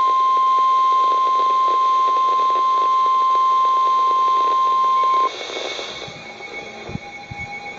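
NOAA Weather Radio warning alarm tone: a single steady 1050 Hz beep that signals a warning message is about to follow, heard through crackling static from a weak signal. It cuts off suddenly about five seconds in, leaving radio hiss and faint whistles.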